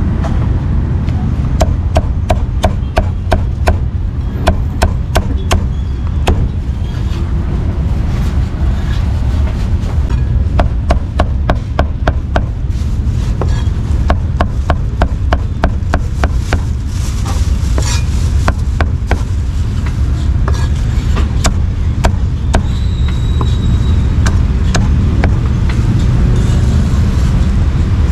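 Steel meat cleaver chopping cooked meat and offal on a thick round wooden chopping block: sharp, quick chops in steady runs of about three a second, becoming sparser and more irregular from about halfway.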